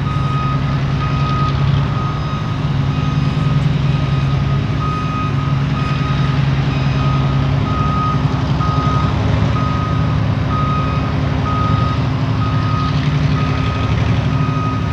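The EMD 12-567 V12 diesel of a GMD1 locomotive runs with a steady low drone as it pulls a pipe train. Over it, a level-crossing warning bell beeps over and over.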